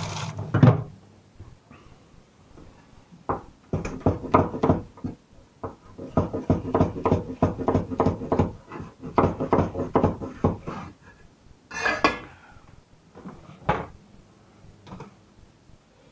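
Knife chopping a green chilli on a wooden chopping board: a run of quick knocks, several a second, from a few seconds in until about eleven seconds. It is followed by a brief rustle and a single knock. Right at the start there is a knock from the fridge's salad drawer being handled.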